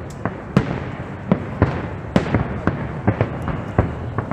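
Aerial firework shells bursting in quick succession, about two to three bangs a second, over a continuous rumble of overlapping explosions and crackle.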